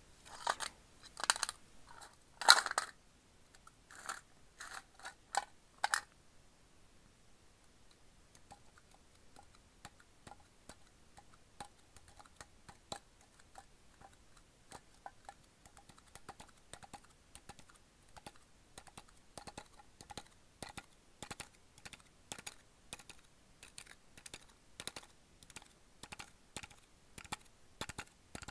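A Sakuma Drops hard-candy tin being handled, making sharp metallic clicks and rattles. The clicks are loud and spaced out for the first six seconds, then turn into a long run of lighter, quicker clicks.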